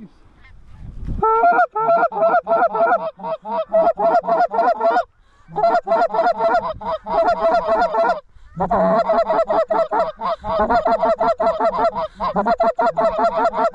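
Goose honking in fast, loud runs of about five honks a second, starting a little over a second in, with brief breaks around five, eight and twelve seconds.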